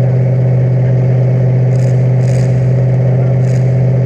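Loud car engine running at a steady, unchanging pitch, with a few brief hissy bursts over it.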